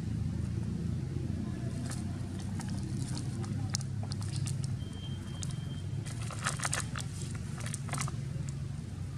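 Dry leaf litter crackling and crunching in scattered short bursts as macaques scuffle on the ground, most densely about six to eight seconds in, over a steady low rumble. A short high tone sounds once about five seconds in.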